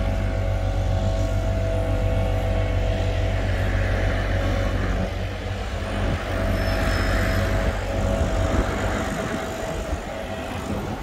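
An engine running at a steady speed: a constant drone with even tones over a wash of outdoor noise.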